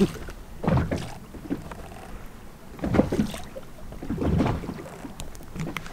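Small boat at sea: low wind and water noise on the microphone, broken by three short, muffled low sounds about a second in, at three seconds and at about four and a half seconds.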